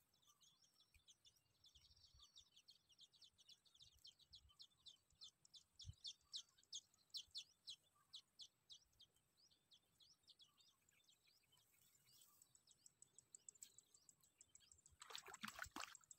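Faint bird calls: rapid trains of short, high chirps repeating about six times a second, later a faster, higher trill, with a brief louder noisy rush near the end.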